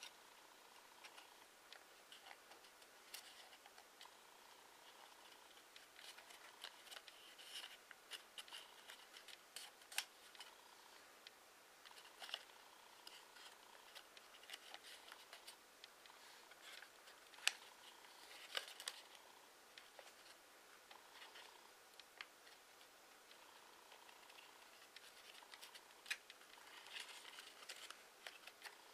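Faint rustling and crinkling of a sheet of origami paper being folded and creased by hand, with scattered sharp crackles as the paper is pressed. The loudest crackle comes a little past halfway.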